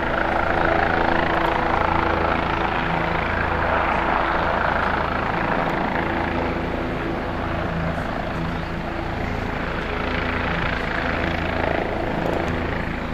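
Helicopter flying past overhead with a steady rotor and engine noise, a little louder in the first few seconds and easing slightly after.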